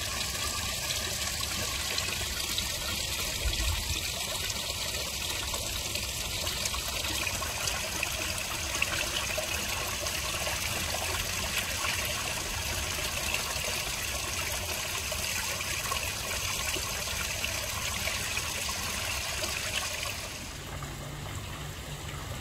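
A small garden-pond waterfall splashing and trickling steadily into a koi pond. The sound turns duller about two seconds before the end.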